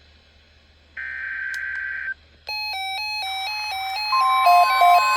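NOAA Weather Radio emergency alert: a one-second buzzy SAME digital header burst, then a fast electronic beeping melody, joined about four seconds in by the steady weather-radio warning alarm tone near 1 kHz that announces a watch or warning.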